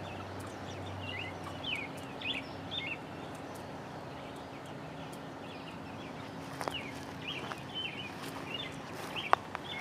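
Young Cornish cross chickens giving short, scattered peeps in two spells while they feed, over a faint steady hum.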